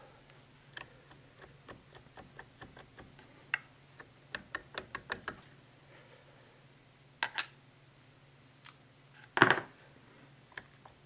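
Light metallic clicks and clacks from an open Triumph Spitfire single-rail gearbox as its shifters are worked through the gears on fresh synchros, coming in a quick run, then a pair, and one louder clunk near the end as the gears are handled.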